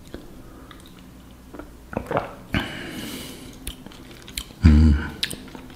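A person sipping wine from a glass, with small mouth clicks, a hissing slurp-like sip about halfway through, and a short low hum near the end.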